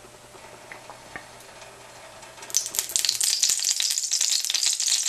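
Olive oil poured into a preheated cast-iron skillet, bursting into loud crackling sizzle about two and a half seconds in. The pan is hotter than the cook expected, and the oil is near its smoke point.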